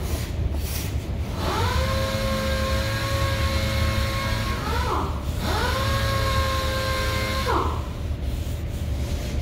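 A power tool's motor whining at a steady pitch over a low hum. It spins up about a second and a half in, winds down and back up near five seconds, and winds down again near the end.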